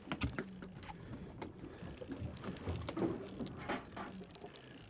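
Faint deck sounds on a fishing boat while a fish is reeled up: scattered small clicks and knocks over a low steady hum.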